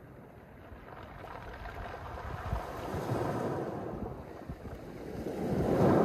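Mediterranean waves washing up a pebble beach, the water and stones surging twice, about halfway through and again louder near the end.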